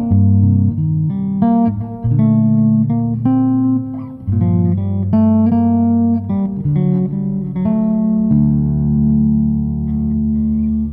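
Five-string electric bass played solo in chord-melody style, fingers plucking chords with the melody on top. The chords change about twice a second, then a final chord is held and left ringing for the last two to three seconds.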